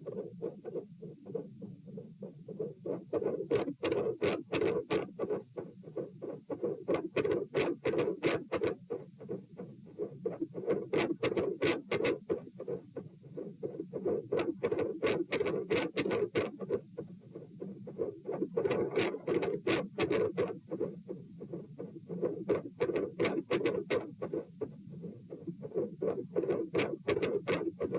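Heartbeat heard through a stethoscope chest piece: a steady run of dull low thumps, beat after beat. Every three to four seconds comes a spell of scratchy rubbing noise from the chest piece moving on skin or clothing.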